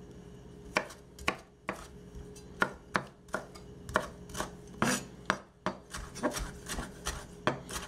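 Chef's knife dicing a Roma tomato on a wooden cutting board: sharp, irregular knocks of the blade striking the board, about two or three a second, starting about a second in. A faint steady hum lies underneath.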